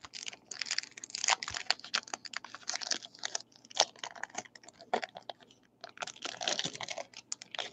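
Foil wrapper of a Topps Stadium Club trading-card pack crinkling and crackling as it is handled and torn open by hand, in a rapid string of small crackles.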